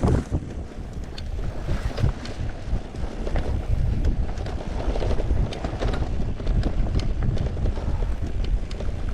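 Wind buffeting the microphone over the rumble of a Haibike Flyon carbon electric mountain bike being ridden over rough ground, with many short sharp clicks and rattles from the bike.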